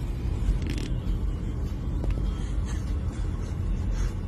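Steady low rumble of engine and road noise from a moving police patrol car, heard from inside the cabin.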